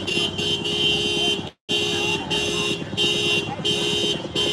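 Car horn honking in short repeated blasts, a little under two a second, each a steady two-note tone.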